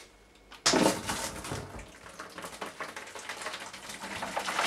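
Hot water from an electric kettle pouring into a brewing bucket to dilute sterilising fluid. The pour starts suddenly about half a second in and runs on steadily.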